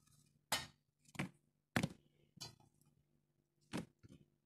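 Pieces of cut bell pepper dropped one by one onto cucumbers in a plastic fermenting bucket: about five short knocks, four in quick succession and one more near the end, over a faint low hum.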